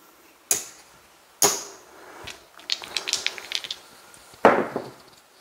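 Casino chips clicking and clacking as they are stacked onto a bet on a felt craps layout: a few sharp single clacks, a run of small quick clicks in the middle, and a louder clack about four and a half seconds in.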